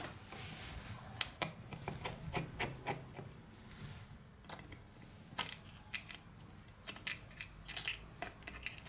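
Scattered light clicks and taps of a metal tool and fingers on an opened tablet's plastic frame and battery, irregular, as a flex cable connector beside the battery is worked at.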